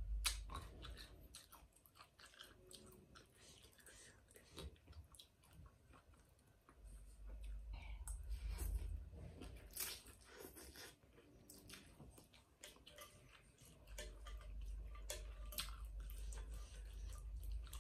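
Mouth sounds of eating rice noodles in soup: chewing, smacking and slurping noodles, with some crunchy bites.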